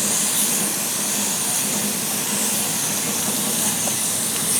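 Water spraying steadily from a hose nozzle onto a bicycle chain and drivetrain, rinsing off the degreaser: an even, continuous hiss.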